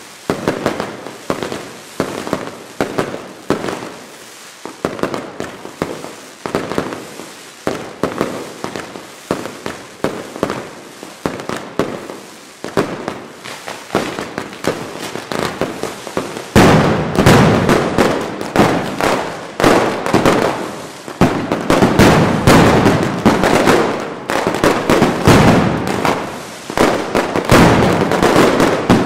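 Mascletà firecrackers going off in a dense, rapid barrage of bangs. About halfway through, the barrage jumps to a much louder and denser volley that keeps going.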